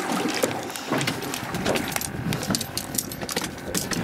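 Clicks and knocks of a plastic fish cooler being handled on a boat deck, over a steady rushing noise.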